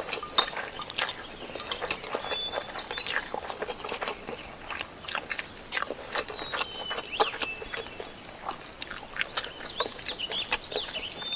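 Chopsticks clicking and scraping against porcelain bowls as food is served and eaten, many irregular light taps. Short bird chirps sound in the background.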